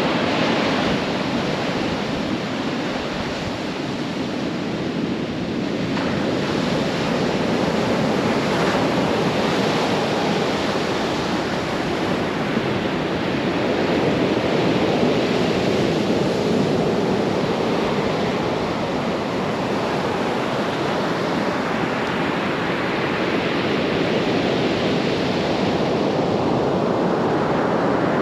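Atlantic surf breaking and washing up the beach in slow, continuous swells, with wind buffeting the microphone.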